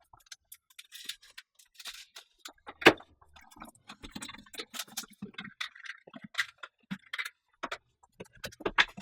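Packaging of an unboxed FabWash being handled: irregular rustling, taps and clicks, with one sharper knock about three seconds in.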